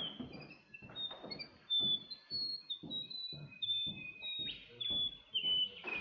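Recorded song of a Western Gerygone played through a small handheld speaker: a string of thin, sweet whistled notes that wander slowly lower in pitch, a song that seems never quite to end.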